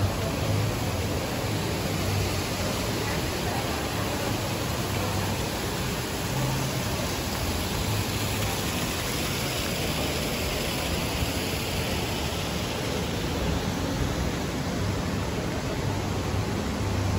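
Small fountain jets splashing into a shallow pool, a steady rushing hiss that grows a little brighter about halfway through.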